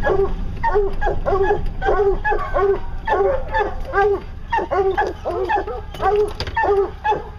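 Bear-hunting hounds barking in a steady, rapid string of barks, about two or three a second.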